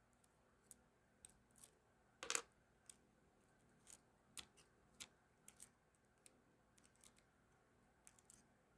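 Small parts of a ratcheting screwdriver's ratchet mechanism clicking and tapping as they are handled and fitted back together: about a dozen irregular sharp clicks, the loudest a little over two seconds in.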